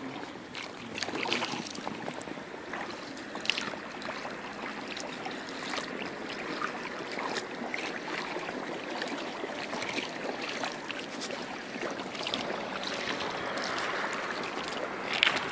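Kayak paddle blades dipping and splashing in river water in an uneven rhythm over a steady wash of moving water, with sharper splashes about three and a half seconds in and near the end.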